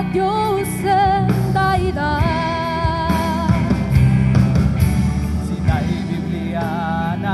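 Live rock band playing a song: a lead singer holds wavering, vibrato notes over strummed guitars, bass and drums.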